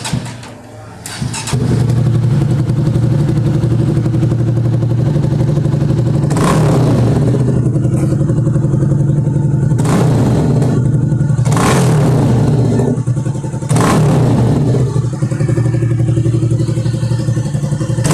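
Honda CB Twister 300F single-cylinder motorcycle engine running loud through an exhaust whose pre-muffler box has been drilled with a small hole, picking up after a brief dip about a second in, then idling with four quick throttle blips.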